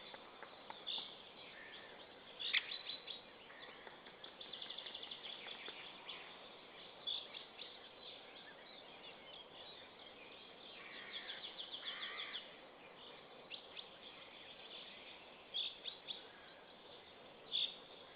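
Faint wild birdsong: scattered short chirps and calls, with two rapid trilled phrases, one about four seconds in and one about eleven seconds in, over a steady outdoor hiss.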